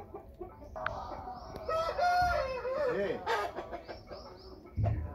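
Gamecock (fighting rooster) crowing: one long crow that starts about a second in, lasts about two and a half seconds and falls away at the end.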